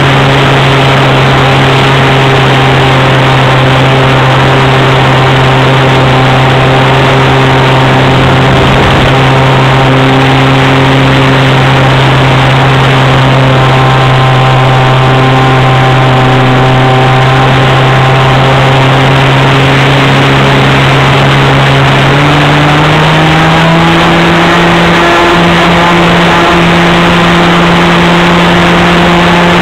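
The .46 two-stroke nitro (glow) engine of a Swift 40 RC plane running hard, heard close up from a camera on the wing. It holds a steady pitch, then rises a step a little past two-thirds of the way through and stays higher.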